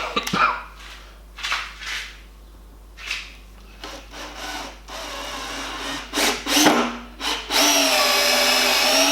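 Bosch 12-volt cordless drill driver run in short bursts, with knocks and rustles of handling between, then held running at a steady speed for about a second and a half near the end.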